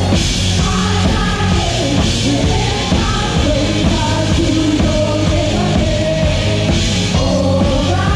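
Loud rock-style worship song: a band with a drum kit playing steadily under a singing voice.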